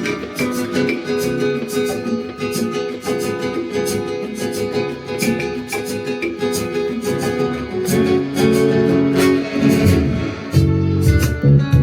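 Nylon-string acoustic guitars playing a rehearsal piece: a line of picked notes that gets fuller and louder, with heavy low strummed chords coming in near the end.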